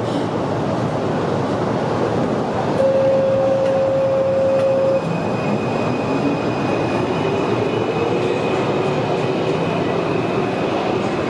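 Alstom AS-02 metro train heard from inside, its running gear rumbling throughout. A steady beep sounds for about two seconds near the start, then a whine rises in pitch over the next few seconds as the train gathers speed.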